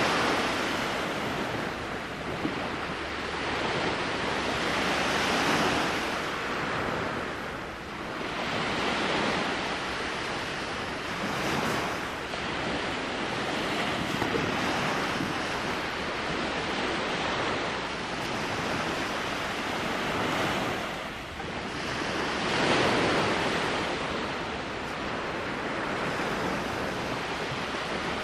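Small sea waves breaking and washing up on the beach, the surf swelling and falling away every few seconds.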